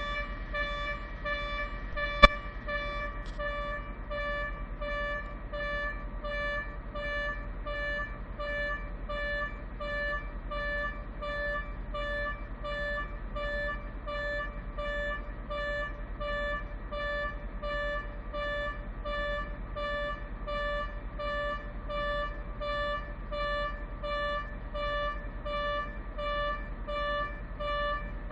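Blasting warning horn sounding a long series of short, evenly spaced toots, a little more than one a second: the warning signal before a rock blast is fired. A single sharp click about two seconds in.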